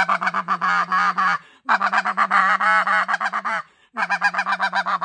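NoCo White Out snow goose call blown with a rapid tongued 'do-do-do' stutter to imitate the snow goose feeding growl: three runs of quick, evenly pulsed notes, broken by short pauses about a second and a half in and just before four seconds in.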